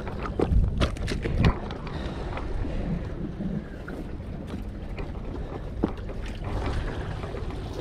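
Wind buffeting the microphone over the wash of sea water among shoreline rocks, with a few sharp knocks and clicks in the first second and a half.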